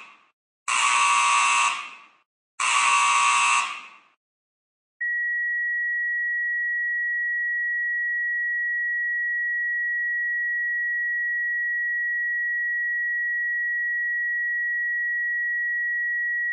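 Emergency Alert System tones: the tail of one buzzing data burst and two more buzzing bursts about a second apart, the header that opens an emergency alert. After a short gap a single steady high-pitched attention tone starts and holds.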